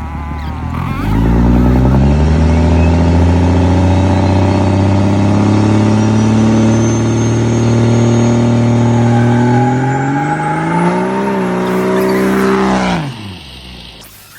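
Car engine revved up and held at steady high revs for several seconds, rising once more briefly before the revs drop away quickly near the end.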